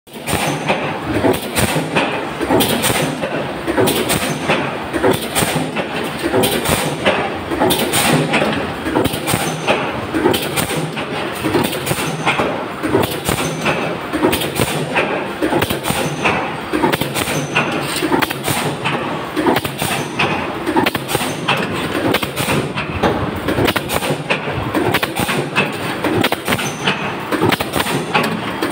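Decoiler-straightener with NC servo roll feeder running in a sheet-metal press shop: a steady mechanical clatter with frequent sharp metallic knocks.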